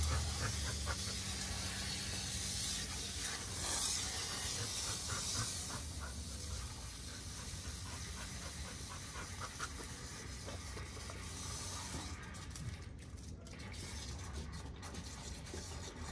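Water from a garden hose hissing as it fills the dogs' water bowls, with a dog panting close by.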